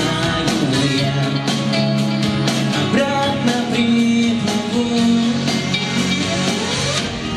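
A man singing a pop ballad live over a backing track played through loudspeakers, with a rising sweep in the accompaniment near the end.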